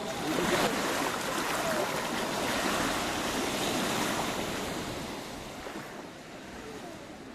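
Small wave washing onto a sandy beach, the rush of water swelling about half a second in and fading away over the last few seconds.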